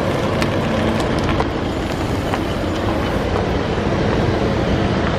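An Isuzu MU-X towing a boat on a trailer rolling past: steady engine and tyre noise on asphalt, with a few light clicks from the rig.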